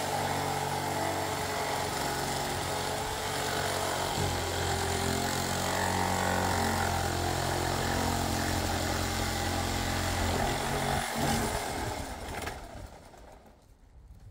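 Corded ERBAUER ERS1100 reciprocating saw running under load, its motor holding a steady pitch that shifts about four seconds in, then stopping about twelve seconds in.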